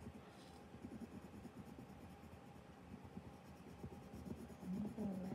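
Colored pencil scratching on paper in quick, faint shading strokes. A brief voice-like sound comes near the end.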